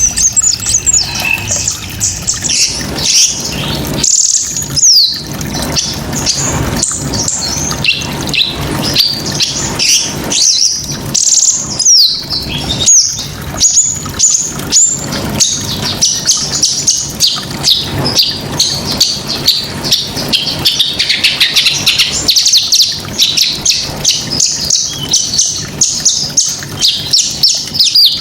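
Small songbird singing a fast, continuous 'tembakan' song: rapid high-pitched chirps, sweeps and trills strung together without pause.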